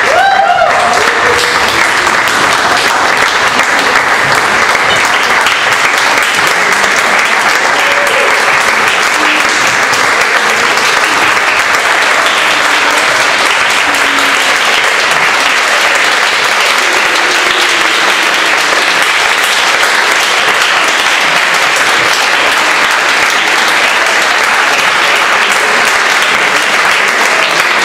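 Theatre audience applauding steadily and loudly, a sustained ovation at the curtain call of a live performance.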